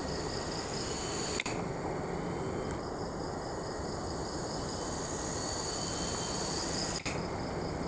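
Steady forest background of insects trilling at high pitch, one of them in a quick pulsing trill, over a low hiss, with two brief dropouts.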